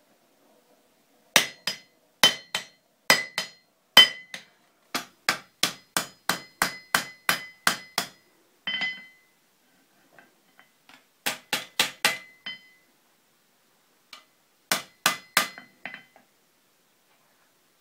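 Blacksmith's hand hammer striking hot iron on an anvil, each blow with a bright metallic ring. A long run of about fifteen quick blows, then two shorter runs of about six blows each after brief pauses.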